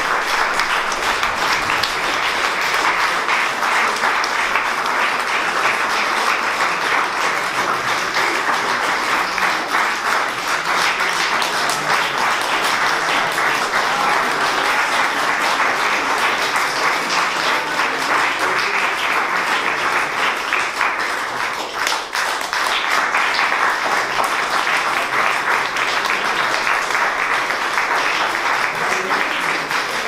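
Audience applause: a long, steady round of dense clapping from a full room, easing briefly about two-thirds of the way through before picking up again.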